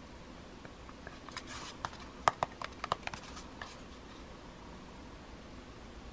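Handling noise of a plastic feature phone turned over in the hands: a quick cluster of sharp clicks and taps of fingers against the plastic casing, over a steady faint hiss.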